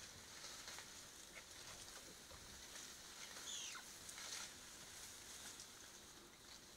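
Faint forest ambience in a bamboo thicket: scattered soft rustles and clicks, with one short high chirp about three and a half seconds in.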